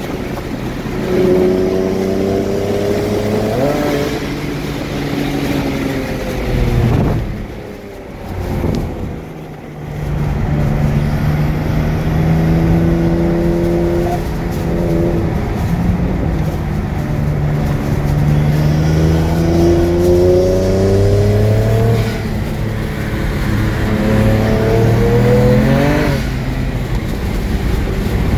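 BMW 335i's N54 twin-turbo inline-six under hard acceleration on track. It rises in pitch through each gear and drops back at several upshifts, with a brief lift off the throttle about eight seconds in.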